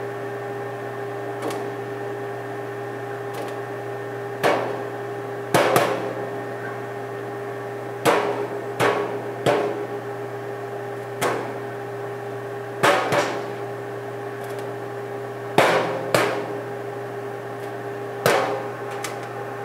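Popcorn kernels popping one at a time inside a Gourmia XL air fryer oven, with about a dozen sharp, irregular pops a second or two apart. Under them runs the oven's steady fan hum.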